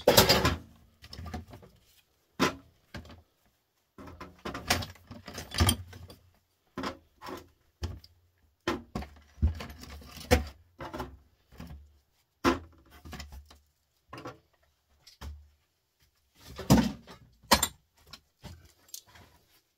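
Small scrap electric motors clinking and knocking together as they are handled and dropped onto a pile or into a container, in irregular metallic clatters with a few louder knocks.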